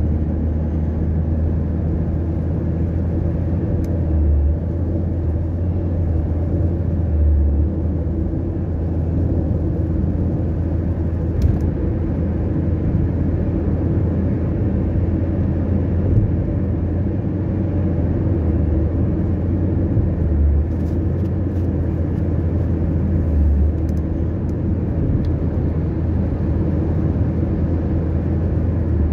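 Steady low rumble of road and engine noise inside a car cabin cruising at highway speed, with a few brief low swells.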